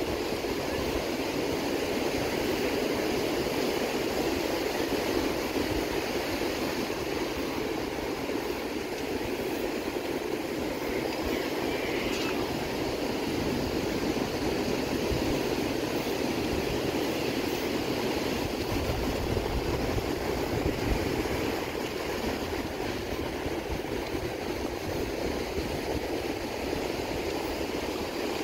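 Ocean surf breaking and washing up a sandy beach: a steady rushing noise that never lets up.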